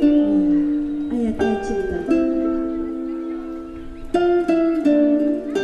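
A woman singing into a microphone over a plucked-string accompaniment, with chords struck every second or two and held between strikes.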